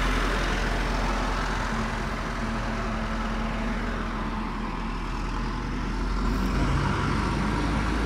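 Street traffic: vehicle engines running nearby, a steady low rumble with no sudden events.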